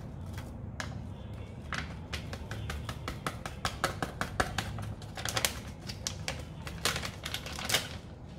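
Plastic soup-mix packet crinkling and being tapped and shaken as the last of the powder is knocked into a saucepan, in quick irregular crackles that get denser and louder in the second half.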